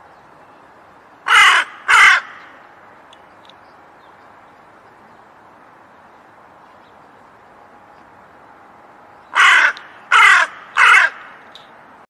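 Crow cawing: two harsh caws about a second in, then three more in quick succession near the end, over a steady background hiss.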